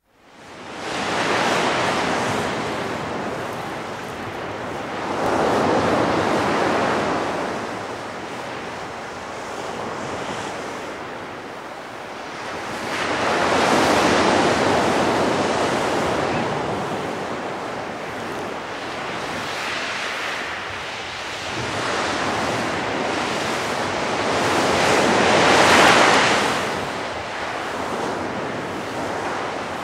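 Waves washing onto a sandy beach, the surf swelling and fading every few seconds, with wind on the microphone. The strongest swells come about halfway through and near the end.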